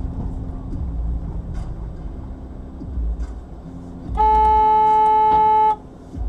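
A car horn sounds one steady blast of about a second and a half, a few seconds in. Underneath it runs the low rumble of a car driving.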